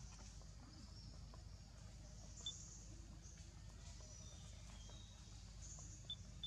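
Near silence: faint outdoor background with a low steady hum and a few brief, high chirps, one about two and a half seconds in and two near the end.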